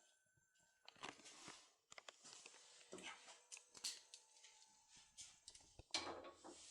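Faint irregular metallic clicks and scrapes of a Dierre cylinder lock and its keys being handled, with a sharper clatter about six seconds in.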